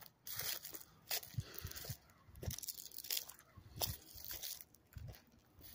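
Footsteps crunching on dry leaves and gravel at an easy walking pace, a crunch every half second to second.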